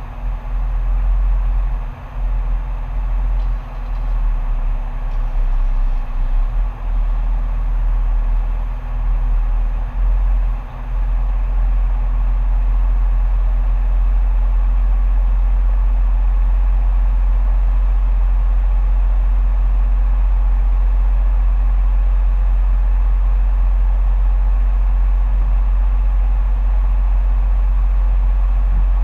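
Car heard from inside the cabin while stopped in traffic: a loud, steady low rumble from the idling engine. It wavers a few times in the first ten seconds or so, then holds steady.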